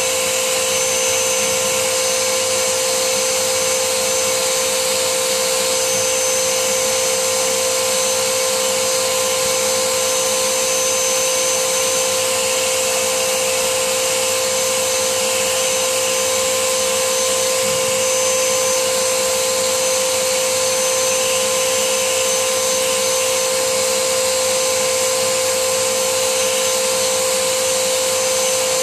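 Vacuum cleaner running at a steady pitch, its hose nozzle drawn along the rear vents of a PlayStation 3 Super Slim to suck dust out of them.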